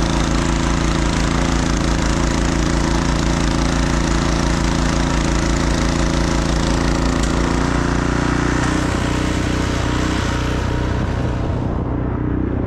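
A motor running steadily: a low hum with a fixed pitch under a broad hiss, the hiss thinning out near the end.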